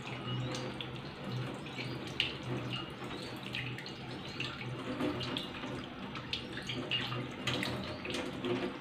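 Clear bottle-gourd and prawn soup simmering in a wok, bubbling with many small pops and gurgles over a steady low hum.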